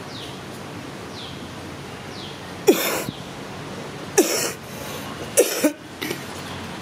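Three short, sharp coughs, about a second and a half apart. A faint high chirp, falling in pitch, repeats about once a second behind them.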